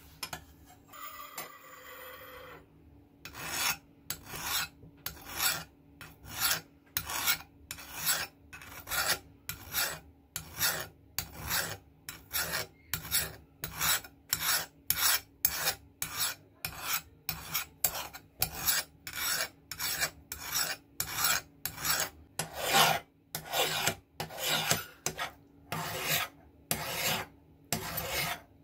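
Hand file rasping across the steel blade of old scissors in steady back-and-forth strokes, about one and a half a second, starting about three seconds in after a fainter brief scrape.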